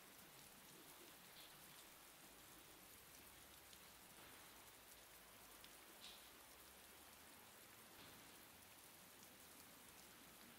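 Faint, steady hiss of light rain falling, with scattered small drips.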